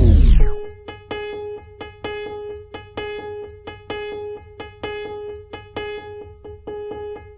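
Background music: the song slides steeply down in pitch and dies out in the first half-second, like a tape slowing to a stop. Then a keyboard plays one note over and over, about two to three times a second.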